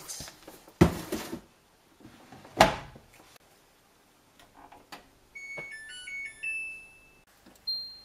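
Two thumps in the first three seconds as the front-loader's door is shut, then the Samsung washing machine's power-on chime: a short electronic melody of several notes ending on a longer held tone, followed near the end by a single higher button-press beep.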